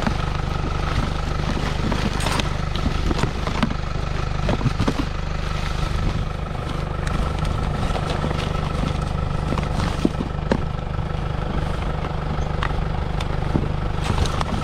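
A motor running steadily with a thin high whine, under scattered light clicks and knocks of items being handled.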